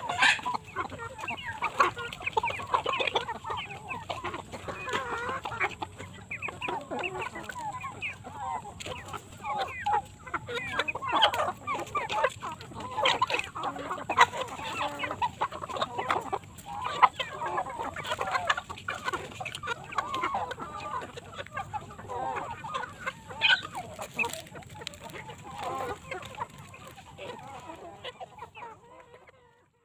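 Several chickens clucking busily and without a break, with scattered sharp clicks; the sound fades away near the end.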